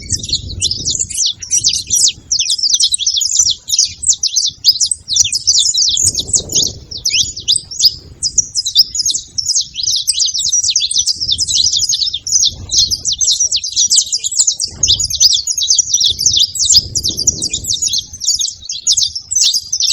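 Saffron finch singing a long, fast, unbroken run of high chirps.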